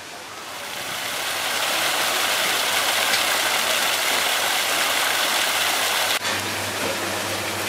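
Water spouts jetting in arcs and splashing into a swimming pool: a steady rushing splash that swells over the first two seconds. About six seconds in it cuts off, giving way to a quieter steady low hum.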